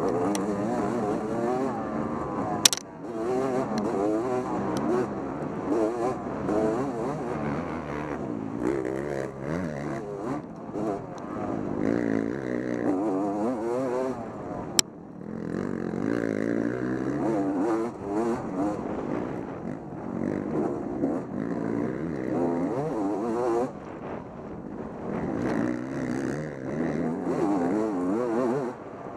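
Dirt bike engine revving up and down over and over as it is ridden, the pitch rising and falling every second or two with short dips off the throttle. Two sharp knocks stand out, one about three seconds in and one about fifteen seconds in.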